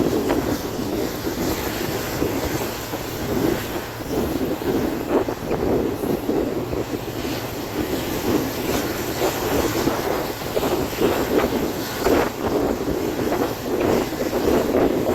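Train running at speed, heard from on board: a steady rumble of wheels on the rails with scattered clicks and knocks from the track.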